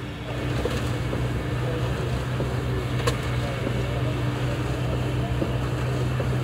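A running engine's steady low hum, with one sharp click about three seconds in.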